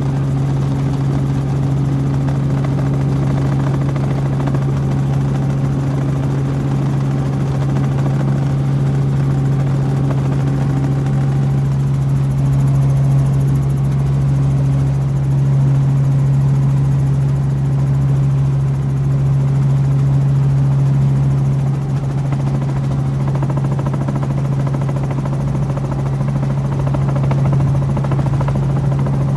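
Helicopter engine and rotor running steadily in flight: a constant low drone that neither rises nor falls.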